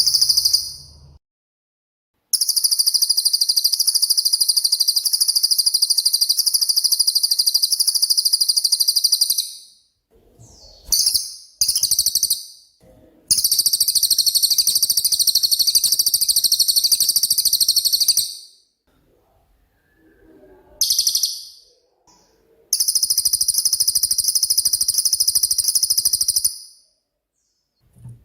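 Cililin bird singing: long, very rapid high-pitched trills, each held for several seconds, with short pauses and a couple of brief bursts between them.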